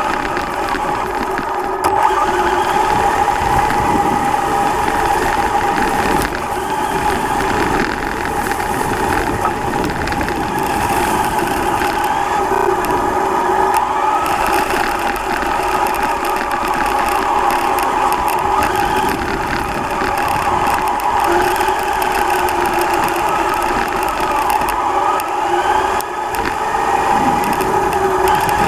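Traxxas Slash Ultimate RC car's brushless electric motor and drivetrain whining steadily as it drives, the pitch bending up and down a little with throttle, over a rough running noise.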